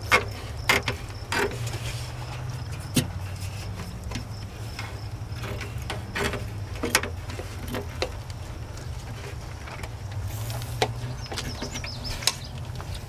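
Scissors snipping plastic window screen and hands working the mesh over river stones: a scatter of short, sharp clicks and rustles, over a steady low background hum.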